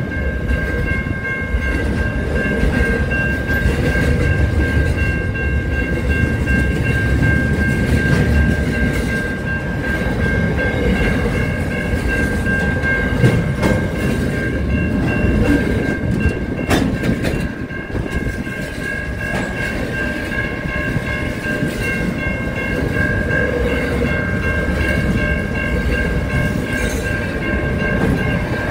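Long double-stacked container freight train passing close by: a steady rumble and clatter of wagons and wheels, with a constant high-pitched whine held over it.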